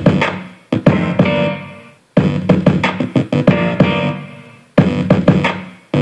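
Music played through a Samsung HW-E350 soundbar. It comes in loud phrases that each start sharply and die away, with short gaps about two seconds in and again near five seconds.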